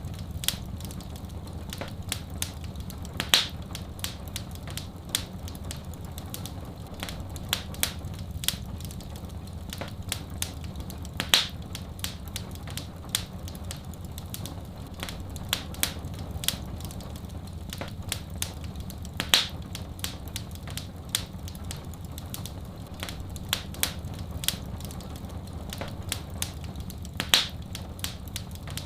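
Fireplace fire crackling: a steady stream of sharp snaps and pops over a low, even rumble, with a louder pop about every eight seconds.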